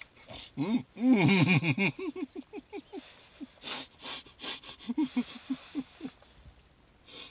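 A man laughing in quick runs of short pitched bursts, with wheezy breaths in between.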